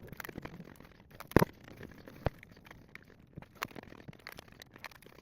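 Crisp fried cannoli shell crunching as it is bitten and chewed: an irregular run of sharp crackles and crunches, the loudest about one and a half seconds in.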